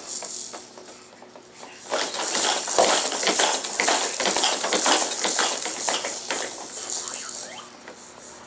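Toys on a Fisher-Price baby jumper rattling and clattering in rapid, irregular clicks as a baby bounces in it, starting about two seconds in and dying down near the end.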